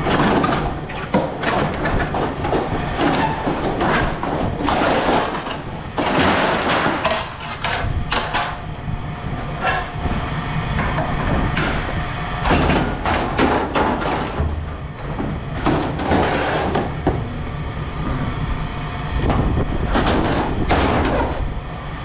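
Scrap metal clanging and scraping in irregular crashes, over the steady low rumble of heavy machinery running.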